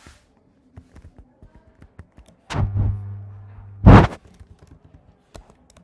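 Scattered light clicks of a computer keyboard and mouse, with a low steady hum for about a second, then a single loud thump just before four seconds in.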